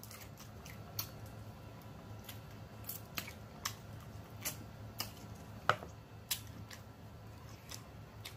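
Close-up eating sounds: wet mouth smacks and clicks while chewing food picked up by hand, coming irregularly about once a second, the loudest about two-thirds of the way through, over a low steady hum.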